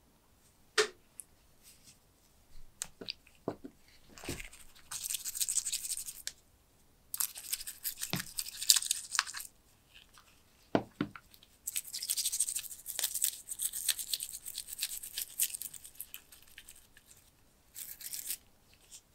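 Stiff-bristled brush scrubbing ketchup off brass monocular parts in a tub of water, in several bursts of a few seconds each. Light clicks and knocks of the parts and brush come between the bursts.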